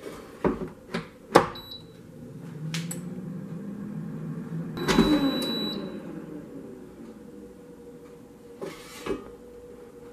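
Plastic-and-metal knocks and clatter of an Instant Vortex Plus air fryer's basket drawer being handled: a few sharp knocks in the first second and a half, a longer sliding scrape that swells and fades in the middle as the drawer is pulled out, and two more knocks near the end as the basket is lifted.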